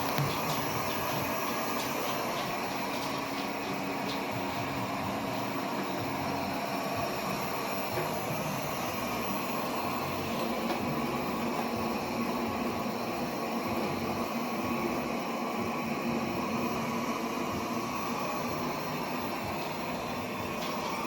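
Airzeen R7 robot vacuum cleaner running: a steady hum of its suction fan and brush motors, with a constant whine on top.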